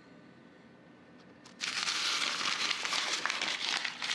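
Sheet of paper rustling and crinkling as it is handled, starting about one and a half seconds in.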